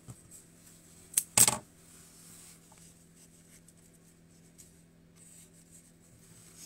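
Metal florist's scissors set down on the hard worktop: a sharp click about a second in, then a short clatter just after. Otherwise only a faint steady low hum.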